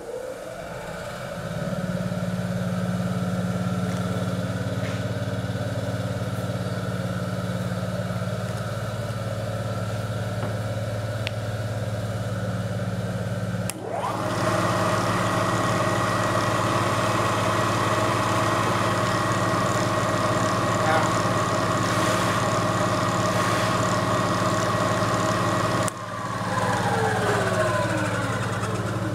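Vectrax 9 x 48 inch knee milling machine running: its motor comes up to speed in the first second or two and settles into a steady hum with a whine above it. The sound breaks off briefly about halfway, and again near the end, where a whine falls in pitch for a few seconds.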